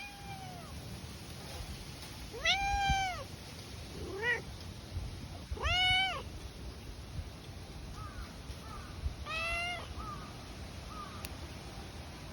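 Cat meowing repeatedly: several long, arching meows and a short rising one, then a few quick, softer chirping calls.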